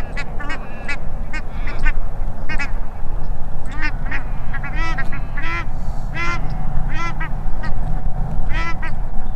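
A flock of black swans and mountain ducks (Australian shelducks) calling from shallow water, with many short, pitched calls following one another irregularly.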